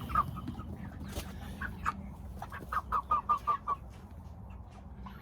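Cornish Cross meat chickens clucking in short repeated notes, with a quick run of about five clucks around three seconds in. They are off feed for 24 hours before butchering, and are probably clucking in complaint.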